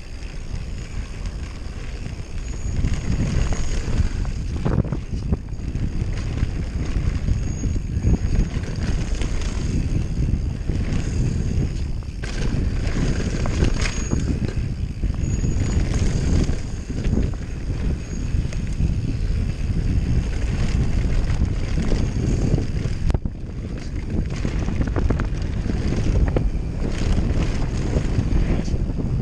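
Giant Glory downhill mountain bike running fast down a dirt trail: tyres rumbling over the ground with wind rushing on the camera microphone, and frequent knocks and clatter from the bike over bumps. The noise grows louder over the first few seconds.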